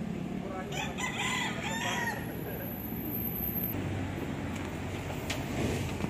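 A rooster crowing once, about a second in, over a steady background hum of outdoor noise and traffic.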